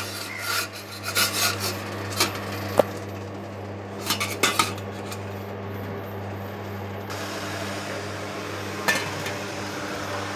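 Stainless steel idiyappam steamer plates clinking and clattering as they are stacked into the steamer pot and the lid is set on: a run of clinks in the first five seconds and one more near the end, over a steady low hum from the induction cooktop.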